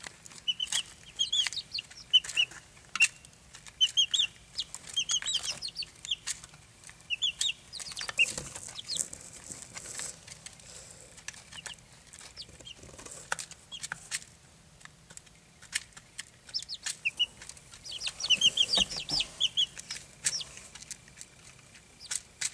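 Barred Rock chicks peeping in several runs of quick, short, high cheeps, over frequent small taps and rustles from the chicks pecking and scratching in wood shavings. The rustling swells twice, near the middle and a little before the end.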